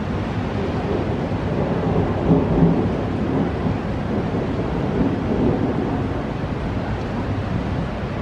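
Thunder rumbling, swelling to a peak about two seconds in and again around five seconds, then easing off, over a steady wash of rain.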